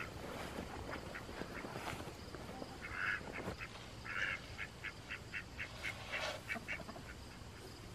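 Flock of hens clucking as they crowd in to be fed, with a quick run of short repeated calls, about four a second, in the second half.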